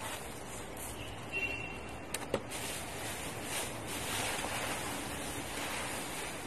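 Rustling of a pink plastic bag as hands dig into it, over steady wind noise on the microphone, with a couple of short clicks a little after two seconds in.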